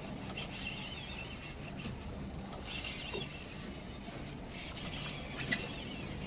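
Steady wind and sea noise aboard a small boat, under a low steady hum.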